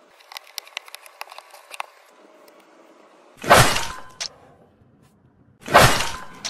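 Plastic MathLink cubes clicking against each other as they are handled, a quick run of small clicks over the first two seconds. Then come two loud, sudden noise bursts about two seconds apart, each dying away over about half a second with a faint tone lingering after it: an added sound effect for the blocks' magic transformation.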